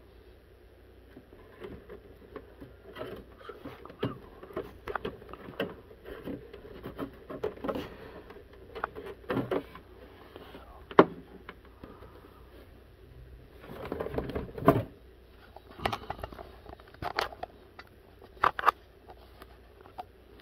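Irregular clicks, knocks and scrapes of a bent tool and hands working at the plastic case of a Radio Shack TRS-80 Model 4P portable computer, with one sharp click about eleven seconds in and a denser burst of knocking and scraping a few seconds later.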